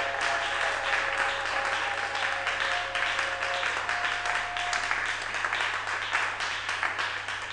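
Congregation applauding, dense steady clapping, with two held musical notes sounding through the first half and a low steady hum underneath.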